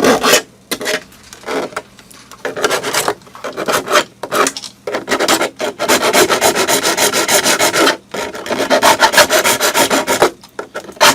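A hand file rasping across a freshly glued seam on a 3D-printed plastic part, in quick back-and-forth strokes in several runs with short pauses between, smoothing the joint as soon as the kicker has set the glue.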